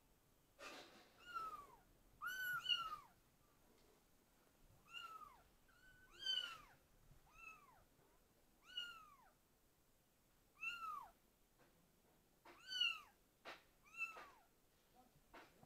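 Kitten mewing: about ten short, high-pitched mews, each rising and then falling in pitch, a second or two apart.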